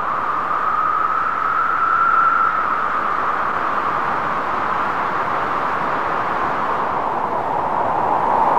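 Steady rushing noise, like wind or hiss, its pitch drifting slowly up and then down; it grows a little louder near the end.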